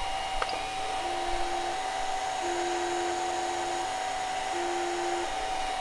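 3D printer fitted with a laser cutting module, running a cutting pass. The head's cooling fan hums steadily with a constant high tone, and the stepper motors whine in three separate stretches, starting about a second in, as the head traces the cut.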